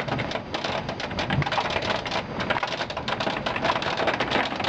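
Heavy hail pelting down: a dense, continuous clatter of countless small hailstone impacts over a steady hiss of rain.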